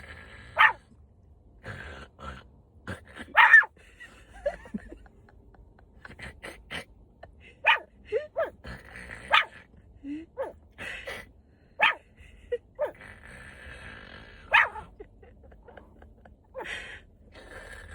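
A Maltipoo snoring in its sleep: short, sharp snorts come about every two to three seconds, with softer rasping breaths between them.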